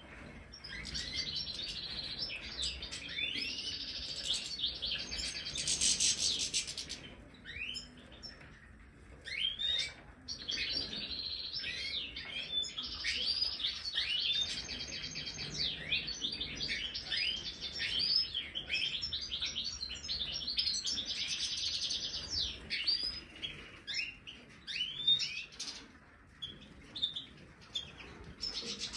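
Several European goldfinches (Major) twittering and singing: rapid high chirps and liquid trills with buzzy stretches, almost unbroken apart from a couple of short lulls.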